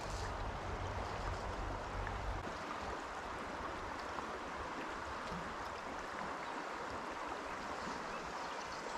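Fast-flowing river water rushing steadily over a riffle, with a low rumble underneath that stops suddenly about two seconds in.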